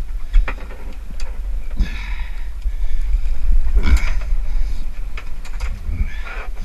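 Wind buffeting the wearable camera's microphone on a small boat at sea, a steady low rumble, with several knocks and bumps as hooked cod are hauled over the gunwale and swung aboard.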